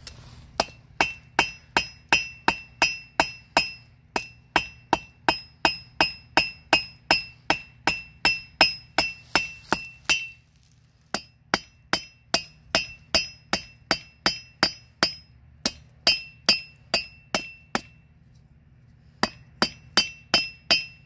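Blacksmith's hammer striking hot steel on an anvil in a steady rhythm of about two and a half blows a second, each blow giving a bright metallic ring from the anvil, which has a magnet attached to quiet its ring. The bar is being drawn out to a taper, with two brief pauses in the hammering.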